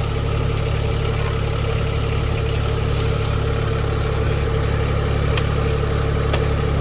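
Branson 1905 compact tractor's diesel engine running steadily at idle.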